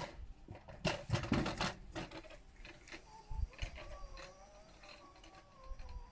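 Sound from a television playing a children's cartoon: a short rattling clatter about a second in, then a wavering held tone with a few overtones that fades near the end.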